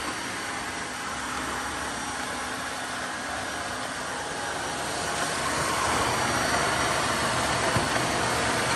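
Tineco Floor One S5 Pro cordless wet-dry vacuum mop running on max mode: a steady motor and suction noise that grows louder about five seconds in.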